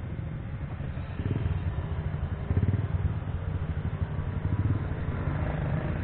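Motorcycle engine running in slow stop-and-go traffic, a low pulsing exhaust rumble that grows louder about a second in.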